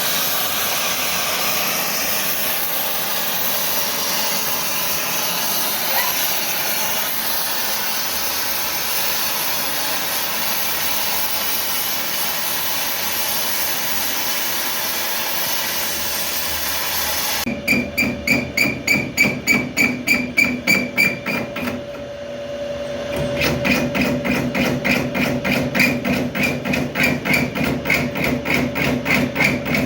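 Steady hiss, then about two-thirds of the way in a regular metallic pulsing of about four beats a second with a ringing tone. It breaks off briefly and starts again. It fits a lathe cutting a hard steel bush.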